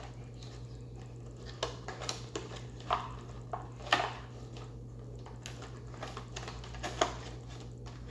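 Toy packaging being handled and pulled apart: irregular clicks and crinkles of plastic and cardboard, sharpest about two, three, four and seven seconds in, over a steady low hum.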